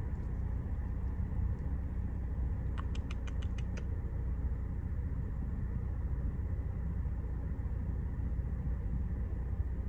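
Low, steady rumble inside a Chevrolet Malibu's cabin while it is driven slowly, with a quick run of about seven light ticks about three seconds in.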